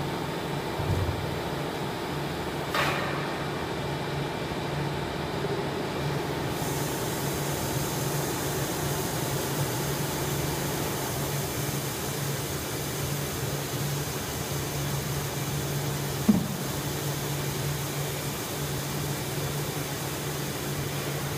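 Large HDPE pipe-fitting injection molding machine running mid-cycle: a steady mechanical hum with low fixed tones. There are a couple of brief knocks near the start and a short sharp click about sixteen seconds in, and a hiss joins about six seconds in.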